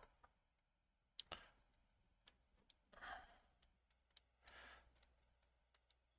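Near silence, broken by faint small clicks and taps as a pick works at the plastic parts of an opened computer mouse, with two soft breaths about three and four and a half seconds in.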